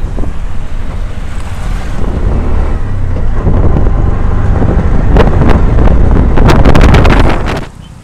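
Riding in an open-sided auto-rickshaw: wind buffeting the microphone over a loud, steady rumble of engine and road. The rumble stops abruptly near the end.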